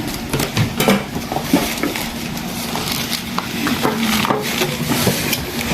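Scattered clicks, knocks and light clatter from items being handled and unpacked from a box.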